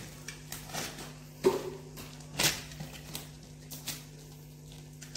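Cardboard shipping box being handled and its packing tape cut open with a cutter: scattered scrapes and knocks, the loudest about a second and a half and two and a half seconds in, over a steady low hum.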